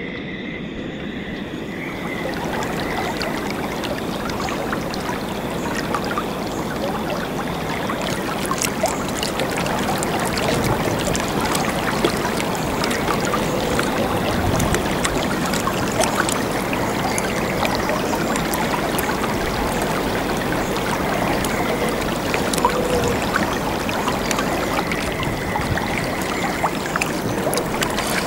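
Sea water splashing and lapping around a kayak as the paddle blades dip in, a steady wash with many small splashes and drips. A faint high steady tone sits underneath at the start and again near the end.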